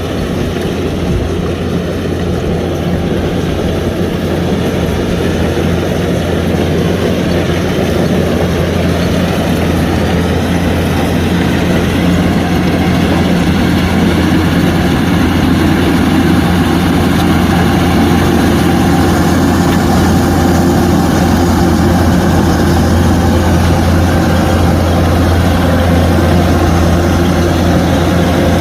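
Kubota DC-105X combine harvester's diesel engine and threshing machinery running steadily with a deep, even hum, growing a little louder over the first dozen seconds or so.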